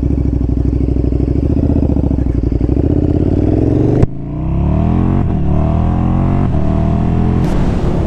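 Motorcycle engine running steadily, then accelerating hard. Its pitch climbs and drops back at each of about three upshifts, with a sharp click about four seconds in.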